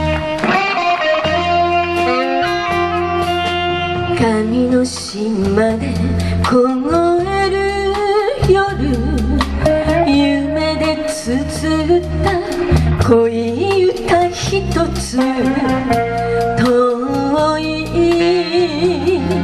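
A live band playing a slow Japanese vocal ballad, with electric guitar, bass and drums under a gliding melody line, and a woman singing.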